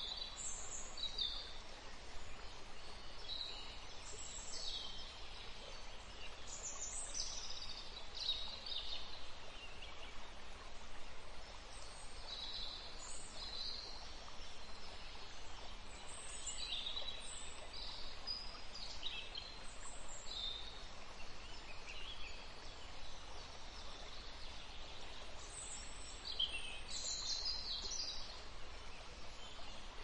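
Small-river nature sound effect: a steady rush of running water, with birds giving short, high chirps again and again.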